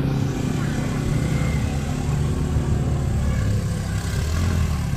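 A motor vehicle engine running steadily close by amid street traffic noise. It gives a low, even hum that drops in pitch in the last second or so.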